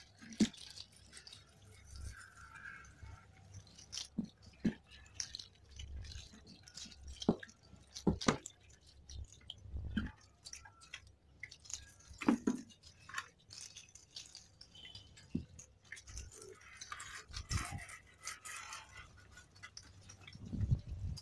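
A hand rubbing and scrubbing the wet shell of a full-face motorcycle helmet under water running from a hose, making irregular knocks and scraping with some splashing.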